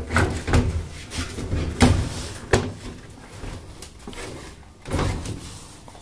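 A series of clunks and knocks from the plastic top panel and lid of a top-load washing machine being handled and opened up: about six in the first three seconds, then one more about five seconds in.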